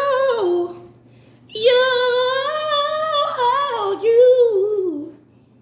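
A woman singing unaccompanied: a phrase that ends about half a second in, then after a short pause one long held note that wavers and slides down near the end.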